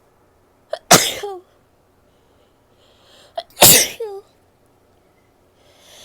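A woman sneezing twice, about a second in and again near the middle, each loud sneeze preceded by a quick catching breath and trailing off in a short falling vocal sound. A breathy inhale builds up before the second sneeze, and another begins near the end.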